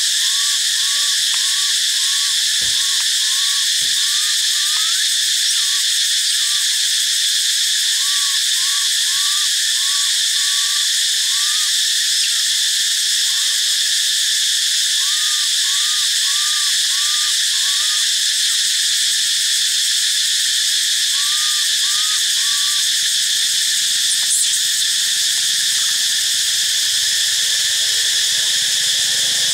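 Steady, high-pitched chorus of forest insects, with bouts of short chirping notes repeated about twice a second from a calling animal.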